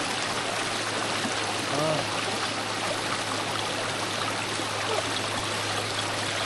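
Mountain valley stream water rushing and burbling steadily over rocks.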